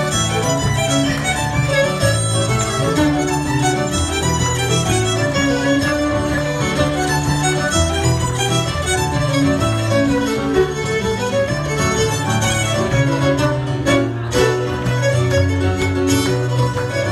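Cape Breton fiddle tune played fast on fiddle over a steady keyboard accompaniment, with bass notes keeping a driving beat.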